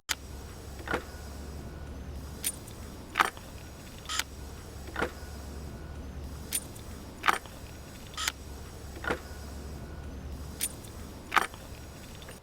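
Small hardware being handled while an electrical plug is wired: scattered sharp clicks and light clinks, over a low steady hum that stops near the end.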